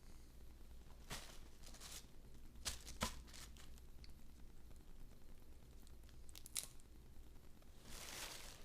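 Blue crab shell and cartilage being crushed and pulled apart by hand: faint crunching and tearing, with a few sharp snaps, the loudest about three seconds in.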